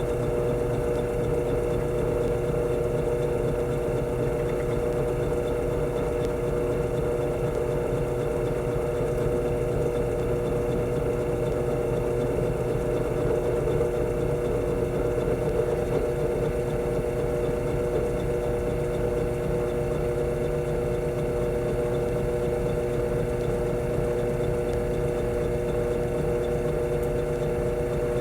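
Electric drill motor running steadily with a constant whine, boring out a small hole with a 7/64 bit.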